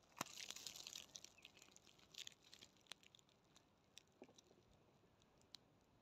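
Near silence, with faint scattered ticks and brief crackles, most of them in the first second and again a little after two seconds in.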